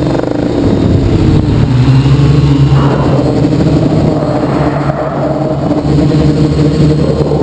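Quadcopter's brushless motors and propellers whining loudly, heard from a camera mounted on the frame, the pitch dipping and rising as the throttle changes.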